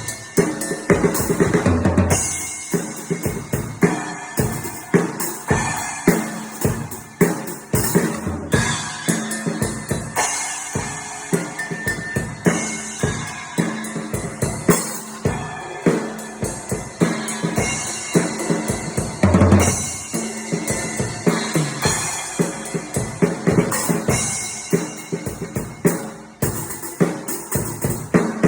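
Drum kit played continuously, kick and snare strokes several a second under the bright wash of entry-level alloy cymbals.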